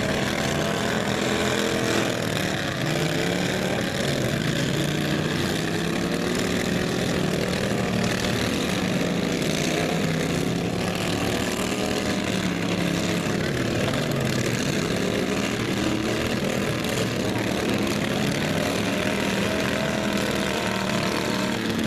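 Several racing lawn mower engines running at once, their pitches rising and falling as they rev and slow.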